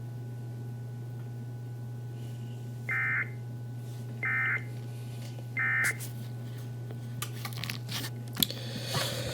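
Three short bursts of Emergency Alert System end-of-message data, a harsh warbling screech, each about a third of a second and evenly spaced, signalling that the Amber Alert broadcast has ended. A steady low hum runs under them, and a few clicks and rustles follow near the end.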